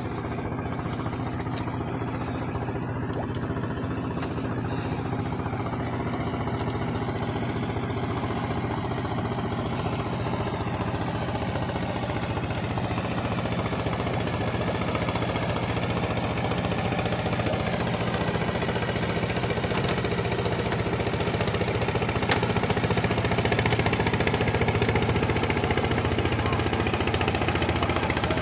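Boat engine running steadily, slowly growing louder.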